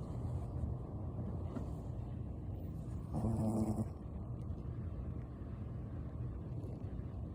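Sleeping dog snoring, with one louder, pitched snore about three seconds in.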